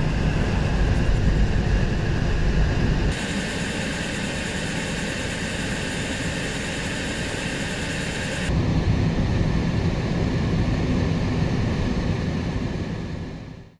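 Steady rumble and hiss of a moving vehicle, with no voices. The sound changes abruptly twice, growing thinner in the low end and brighter in the highs for a few seconds before returning to a heavier rumble, then fades out near the end.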